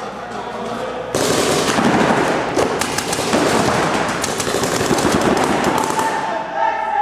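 Paintball markers firing in rapid succession, the shots running together into a continuous rattle that starts abruptly about a second in and thins out near the end.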